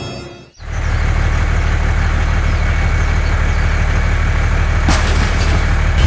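A heavy diesel engine running steadily at a constant pitch, starting about half a second in as music fades out, with a brief click near the end.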